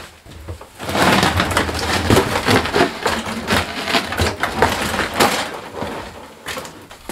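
Clatter and crunching of a Cub Cadet snowblower being pushed along on its rubber tracks with the engine off: a dense run of knocks and rattles that starts about a second in and eases off near the end.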